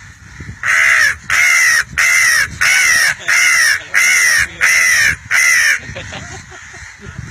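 A man imitating a crow's caw with his voice: eight loud, evenly spaced caws over about five seconds, each rising and then falling in pitch.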